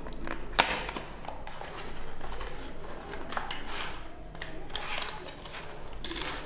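A data cable's retail packaging being opened by hand: irregular rustling and scraping, with a sharp click about half a second in.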